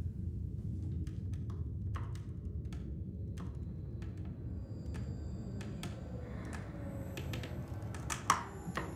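A steady low rumble with irregular sharp clicks and taps. Thin high sustained tones join about halfway, and there is one louder knock near the end.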